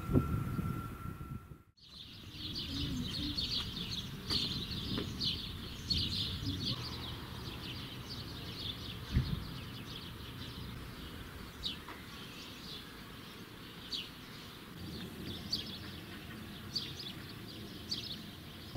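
Small songbirds chirping and twittering again and again over a faint outdoor background. In the first two seconds, a distant train's low rumble cuts off abruptly.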